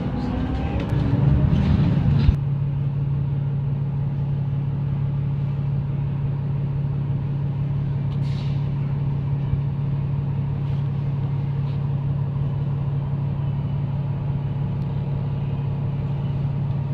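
Tour bus engine idling with a steady low hum, heard from inside the bus. A louder rumble fills the first two seconds and cuts off suddenly.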